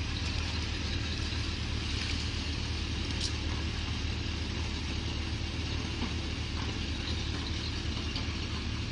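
Off-road truck engines idling, a steady low rumble that holds even throughout.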